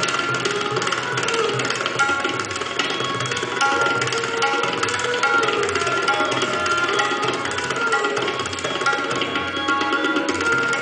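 Tabla played fast and without a break in imitation of a running train: dense, rapid strokes on the ringing treble drum, while the bass drum's pitch swoops up and down every second or two.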